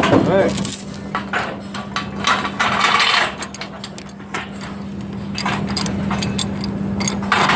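Heavy steel crane lifting chain and shackles clinking and clanking as they are handled, with a rattle about three seconds in and a run of quick clinks in the second half, over a steady low hum.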